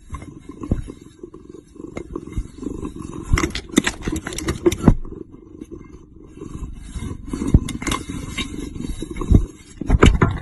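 Domestic cat purring close up, a continuous low rumble, with scattered sharp knocks and taps as the cat presses its face against a clear plastic container.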